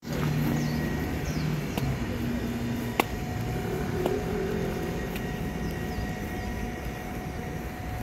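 City street ambience: a steady traffic rumble, with a low engine hum in the first second or so and a few sharp clicks.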